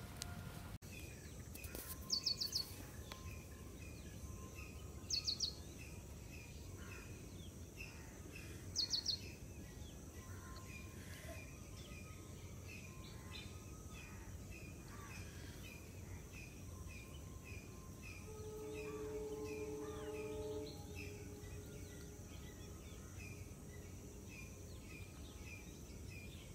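Birds calling at dawn over a low steady background hum. A small chirp repeats about twice a second throughout, and three loud, quick triple calls stand out in the first nine seconds. About two-thirds of the way through, a low tone is held for about two seconds.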